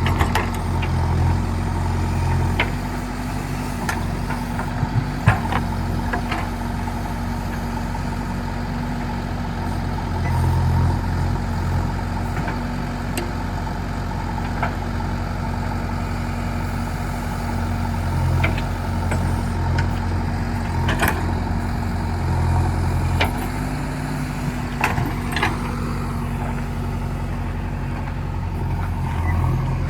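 JCB backhoe loader's diesel engine running steadily, surging louder every several seconds as the hydraulics take load, with a few sharp knocks.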